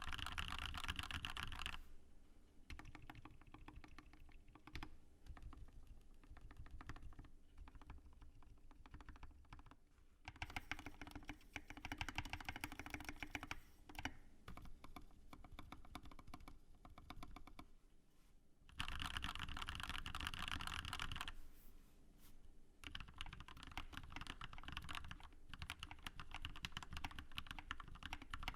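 Typing on a custom GK61 60% mechanical keyboard with lubed, filmed Gateron Milky Yellow linear switches and PBT keycaps. Fast runs of keystrokes alternate with quieter, sparser stretches.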